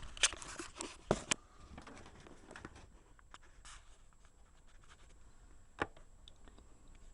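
Scattered sharp clicks and knocks in a small room: a quick cluster in the first second and a half, faint ticks after, and one louder knock near six seconds in.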